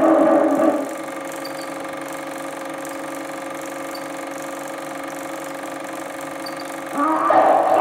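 Super 8 film projector running with a steady mechanical hum. In the first second, and again from about seven seconds in, a louder sound from the film's soundtrack rises over it.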